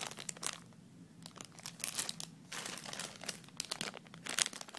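Clear plastic bag crinkling in irregular bursts as it is handled, with grey plastic model-kit runners inside.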